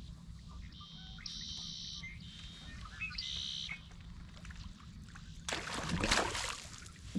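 Fishing reel on a kayak whirring in two short, even-pitched spells as a lure is cast and reeled, over a low steady rumble. A louder rushing, splashing noise comes about five and a half seconds in and lasts about a second.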